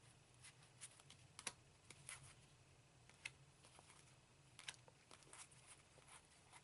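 Faint, irregular clicks and taps of trading cards being handled and set down on a table, over a low steady hum.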